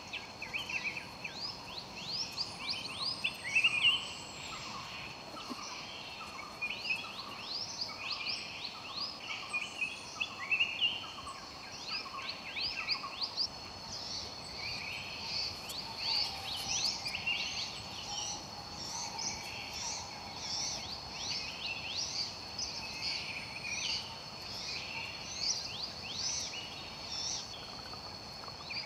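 A dense chorus of forest birds gives quick, repeated chirping calls throughout, over a steady high drone of insects.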